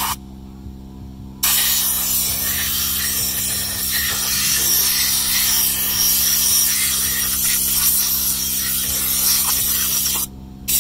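Compressed air hissing from an air blow gun aimed into the open end of a dirty electric motor, blowing out its windings: a short blast at the start, then a steady blast of about nine seconds that cuts off near the end, and one more short blast right at the end.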